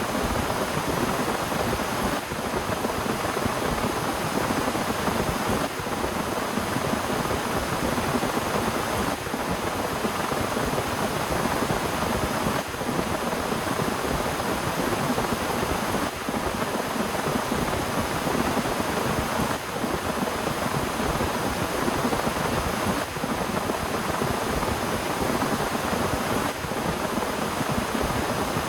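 Heavy rain falling steadily, an even dense hiss with no breaks.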